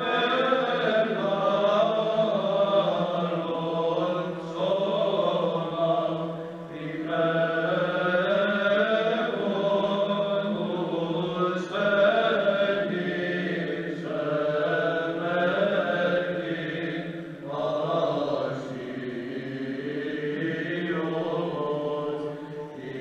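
Male choir of Byzantine chanters singing unaccompanied Byzantine chant: a slow, ornamented melodic line over a steady held low drone (the ison), with brief breaks between phrases.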